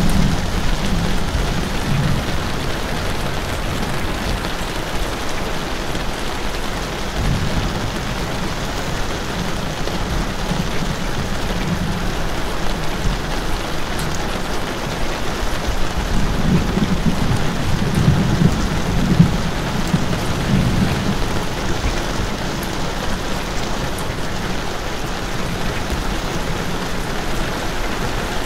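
Steady rain falling hard on surfaces. A low rumble swells and fades several times underneath it, strongest a little past the middle.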